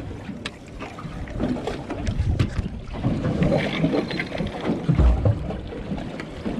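Wind buffeting the microphone and water moving around a small boat at sea, with scattered light clicks and a heavier low thump about five seconds in.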